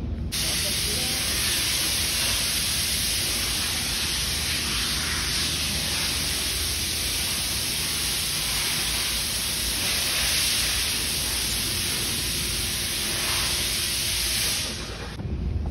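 A steady hiss like rushing air or spray that starts suddenly just after the beginning and cuts off suddenly about a second before the end.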